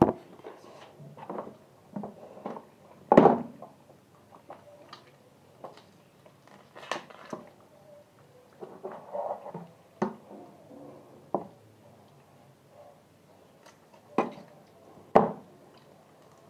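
Irregular knocks and clatter with wet handling sounds as a raw, freshly slaughtered chicken is handled at a kitchen sink; the loudest knocks come about three seconds in and near the end.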